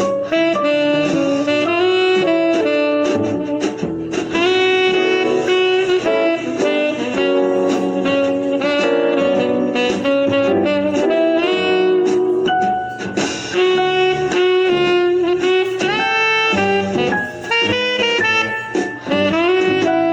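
Background music: an upbeat jazz tune with a saxophone playing the melody.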